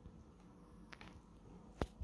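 Soap cubes knocking against a clear bowl: a faint tap about a second in and one sharp click near the end.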